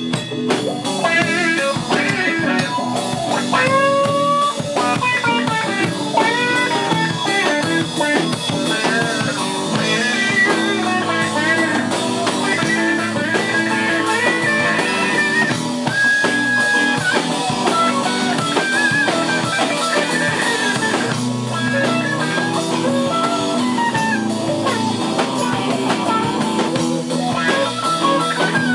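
Live blues band playing: a lead electric guitar solo with many bent notes over steady low backing and a drum kit.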